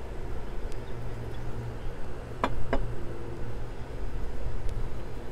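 Steady low background rumble, with two short sharp clicks about a quarter second apart midway.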